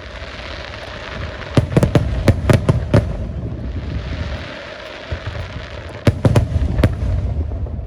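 Aerial fireworks going off: a quick volley of about six sharp bangs between one and a half and three seconds in, then another group of about four around six seconds in, over a continuous low rumble and hiss.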